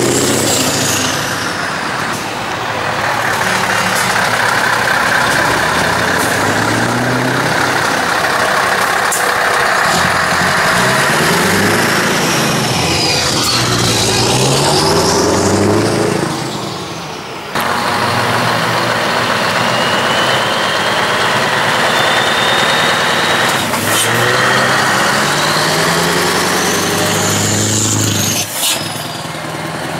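Heavy truck diesel engines revving through straight exhaust pipes, the note rising and falling again and again. The sound changes abruptly a little past halfway, from one truck to another.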